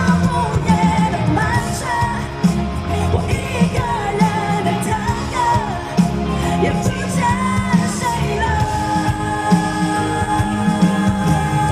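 A woman singing a pop-rock song into a microphone over a band with bass and drums, belting in the first half and holding a long note about eight seconds in.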